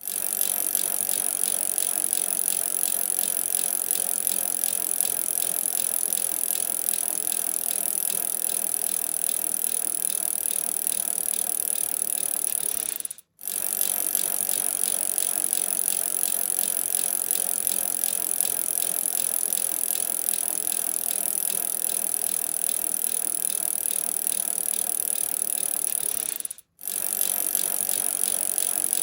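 Bicycle chain and drivetrain running, a rapid, even ticking rattle. It cuts out for a moment about 13 seconds in and again near the end.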